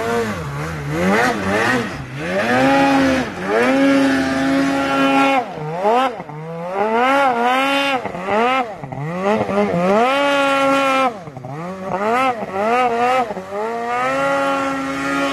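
Polaris RMK Khaos two-stroke snowmobile engine revved up and dropping back again and again, about a dozen throttle blips, as the sled is worked through deep powder.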